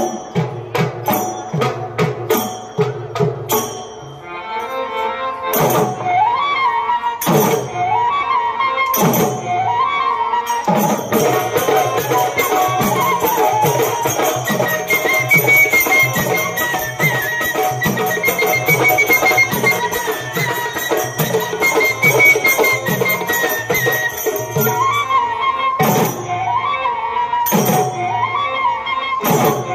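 Indian folk ensemble music: a small flute plays a gliding melody over dhol and dholak drums. It opens with a few seconds of rapid sharp drum strokes alone; the flute comes in about six seconds in, with heavy drum strikes about every one and a half seconds and a steady driving beat, climbing higher in the middle.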